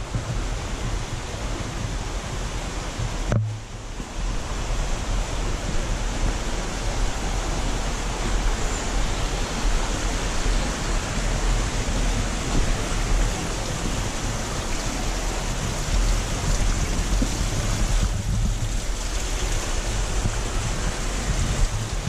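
Steady rush of water, with wind rumbling on the microphone. A brief knock about three and a half seconds in.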